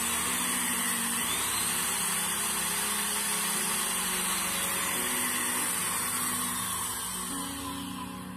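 An old corded electric drill running free with no load: a steady motor hiss and whine that winds down near the end, with faint background music underneath.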